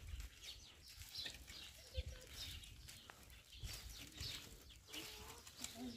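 Faint footsteps on a dirt and gravel path, with the rustle of a large bundle of dry branches carried on the back, coming in a steady walking rhythm. Faint animal calls sound in the background.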